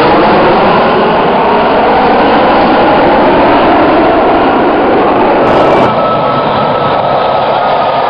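Jet engines of a formation of fighter jets flying past, a loud continuous roar with whining tones that slide in pitch as the aircraft pass.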